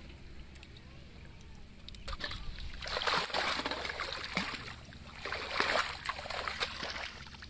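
Water splashing and sloshing, starting about two seconds in and coming in two rough stretches before dying down near the end.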